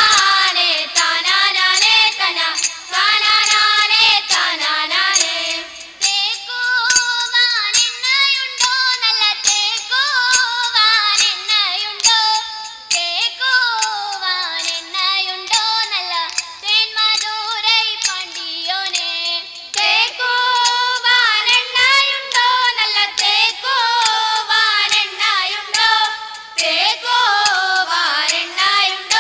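A group of girls singing a song together through stage microphones, keeping time with rhythmic hand claps.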